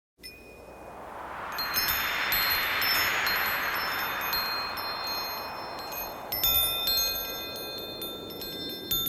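Wind chimes tinkling, several ringing tones struck together in a few clusters, over a rush of wind that swells and fades.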